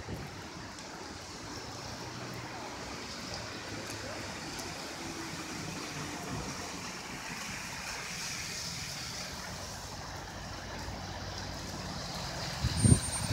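Steady rush of rain runoff water flowing after a downpour, with a low steady hum underneath. Wind buffets the microphone in loud gusts near the end.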